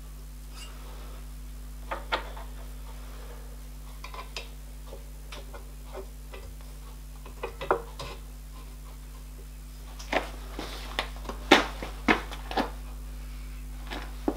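Light metal clicks and clinks as small metal drive cranks are handled and slid onto the axle ends of a model steam locomotive. The knocks come a few at a time at first and crowd together in the last few seconds, over a low steady hum.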